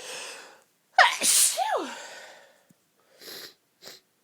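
A woman's sneeze during a sneezing fit: a drawn-in breath, then a sudden loud sneeze about a second in, with a voiced cry that falls sharply in pitch as it trails off. Two short breaths follow near the end.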